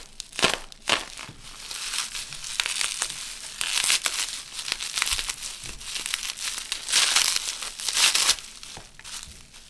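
Plastic bubble wrap crinkling and crackling as it is unwrapped by hand, with louder bursts about four seconds in and again near seven and eight seconds.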